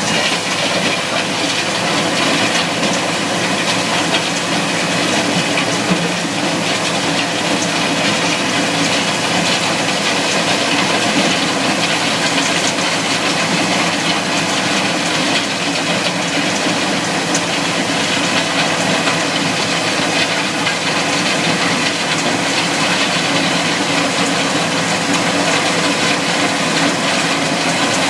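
Takeuchi TL12R2 compact track loader's diesel engine running steadily at work, with a loud, even hiss over the engine note.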